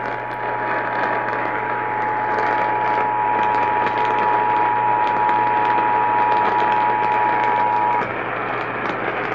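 Emergency Alert System attention signal, the steady two-tone alarm, heard over AM radio static for about eight seconds and then cutting off, leaving the static. It announces an emergency alert about to be read.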